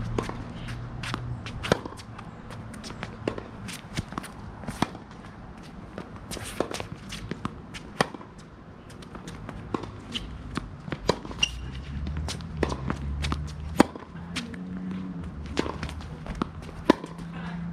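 Tennis ball being struck by rackets and bouncing on a hard court during a rally: a long string of sharp pops, roughly one every second.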